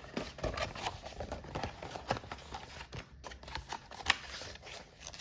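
Pages of a paper cross-stitch pattern booklet being handled and turned: irregular rustles and light taps, with one sharper click about four seconds in.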